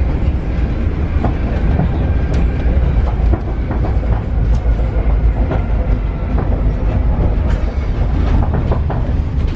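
Paris Metro Line 7bis train running, heard from on board: a steady low rumble with scattered clicks and knocks from the steel wheels on the track.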